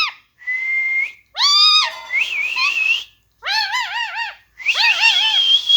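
Pet parrot whistling and calling on command: a short steady whistle, rising squawks and a warbled whistle, then runs of quick, arching yelping notes that sound dog-like, over a held whistle near the end.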